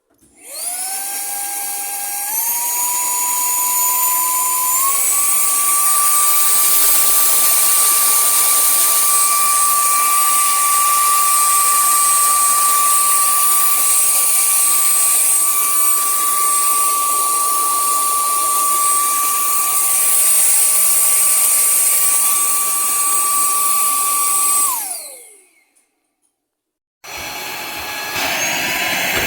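Higoom cordless handheld vacuum cleaner running: a high motor whine with rushing air that climbs in pitch in steps over the first few seconds, holds steady for about twenty seconds, then winds down with a falling pitch when switched off. After about a second of silence it starts up again near the end.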